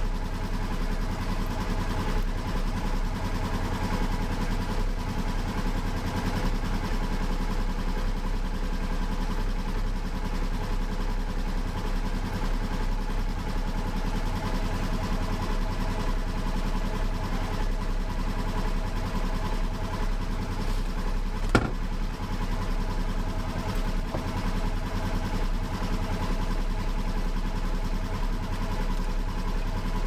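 Polaris Ranger UTV engine idling steadily, left running after an oil change to check for leaks. A single sharp click cuts through once, about two-thirds of the way in.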